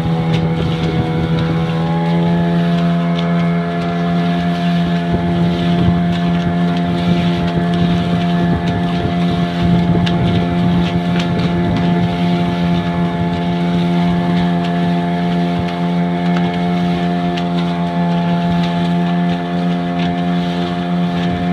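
Yamaha 15 hp outboard motor running steadily under throttle, pushing the boat along at an even speed, with wind on the microphone. It runs smoothly, in normal condition.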